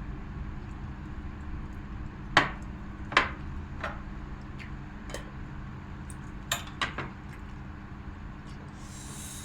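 Cutlery clinking against a plate or bowl while eating: a handful of sharp, separate clinks, the loudest two a little under a second apart, over a steady low hum.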